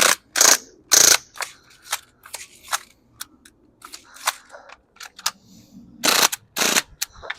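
CO2 BB gun shots fired at a tablet: an irregular series of sharp pops. The loudest come about half a second and a second in and again near the end, with fainter clicks between them.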